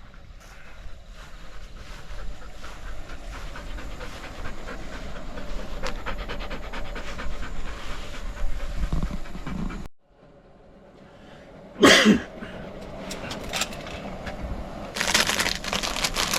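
A dog panting steadily. After a sudden cut about ten seconds in there is a short loud burst, and near the end a crinkling of packaging begins.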